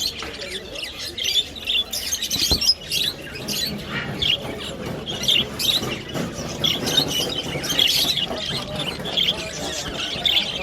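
Many caged birds chirping and squawking at once: a dense, unbroken chatter of short high calls.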